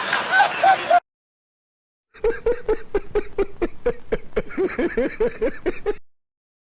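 Meme sound-effect clips played back to back. A snickering laugh cuts off about a second in. After a second of dead silence comes a rapid run of short pitched calls, about four a second, for nearly four seconds, which then stops.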